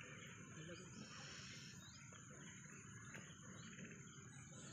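Faint outdoor ambience: a steady high insect drone with a few short, high chirps scattered through it.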